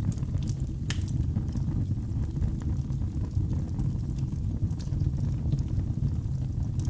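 Wood fire crackling in a fireplace: a steady low rumble with scattered sharp pops, a louder pop about a second in.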